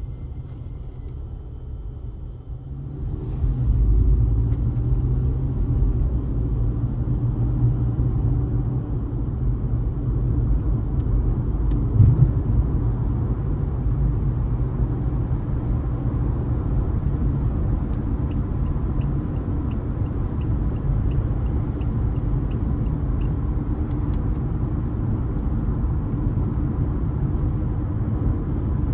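Car driving on a road: a steady low rumble of engine and tyres that grows louder about three seconds in. There is a brief thump near the middle, and a faint, even ticking for a few seconds later on.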